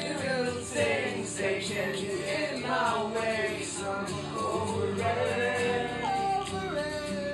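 A song with male singing, with a group of young men's voices singing along.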